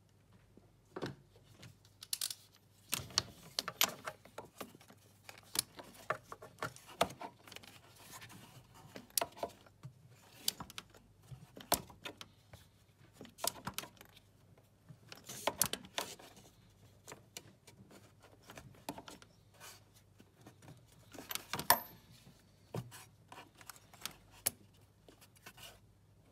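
Irregular metallic clicks, clinks and short rattles of hand tools and small parts being handled in a car's engine bay, with a ratcheting spanner used on the new coolant temperature sensor in the engine block. One click about twenty-two seconds in is sharper than the rest.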